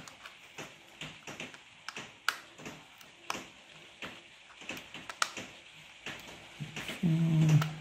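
Irregular small plastic clicks and taps as a toy car's hard plastic body shell is pressed and fitted over a 3D-printed PLA chassis. Near the end a man's voice gives a brief wordless murmur, louder than the clicks.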